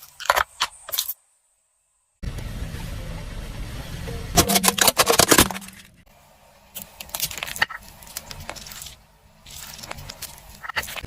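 Car tyres rolling over and crushing plastic toys under a low engine rumble: a burst of loud cracks and crunches in the middle, and smaller crackling later. A few sharp clicks at the start are cut off by a second of dead silence.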